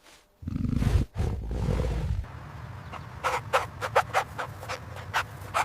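A big cat roaring: one deep, loud roar lasting about two seconds. About a second later a quick series of short, sharp animal calls begins, several a second.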